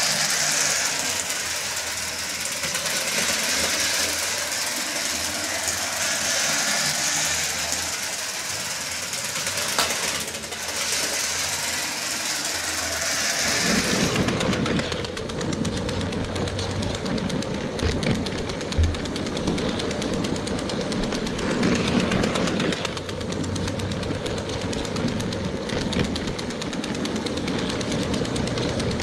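Lego toy train motors running the trains around plastic track with a steady whir. About halfway in the sound turns closer and rattlier, the motor and wheels clattering as if heard riding on the train itself.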